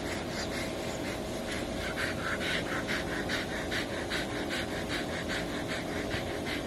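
A husky panting rapidly close to the microphone, about five breaths a second.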